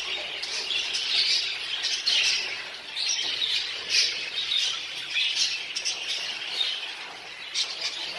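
A roomful of budgerigars chattering together: a continuous, overlapping warble of chirps and squawks from many birds at once.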